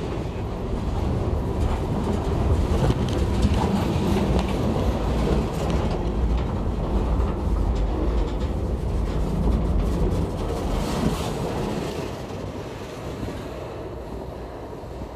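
Freight cars rolling directly overhead on the rails, their steel wheels rumbling with a run of clicks and clacks. The sound fades away over the last few seconds as the last car passes.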